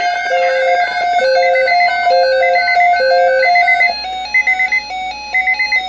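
Midland weather alert radios sounding their electronic alert for a severe thunderstorm watch: a low two-note melody that shifts to a stepping pattern a little before the end, with groups of four quick high beeps about once a second.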